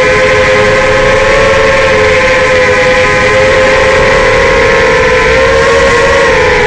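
Racing quadcopter's four Racerstar BR2205 2600KV brushless motors spinning 5-inch Dalprop props, a loud steady whine of several close pitches that waver slightly up and down with the throttle.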